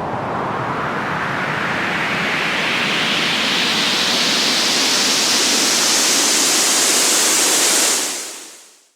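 White noise riser sweep: a hiss whose pitch climbs steadily higher and grows slightly louder for about eight seconds, then fades out quickly near the end.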